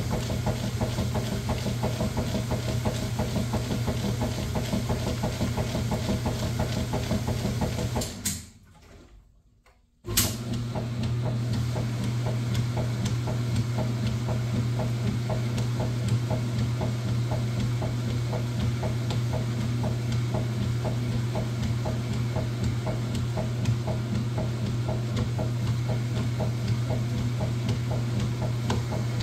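Top-loading washing machine running: a steady motor hum with an even, rhythmic agitation churning on top. The sound cuts out for about two seconds a third of the way in and returns with a click.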